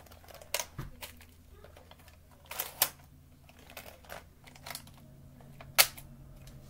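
Scattered clicks and knocks of a folding Polaroid Automatic 104 Land Camera being handled; the sharpest snaps come about three seconds in and again near six seconds.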